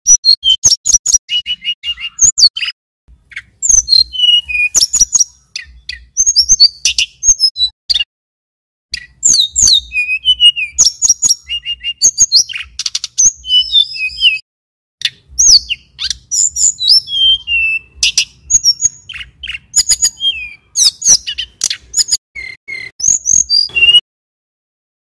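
Male tledekan gunung (sulingan gunung) singing: long runs of rapid, high chirps and whistled slurred notes, broken by short pauses, stopping about a second before the end.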